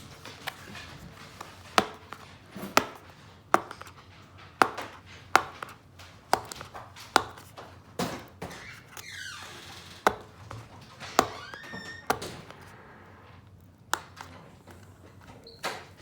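Webcam packaging being opened by hand: an irregular string of sharp taps, clicks and knocks as the box is handled and pried at, with a brief scraping slide about nine seconds in.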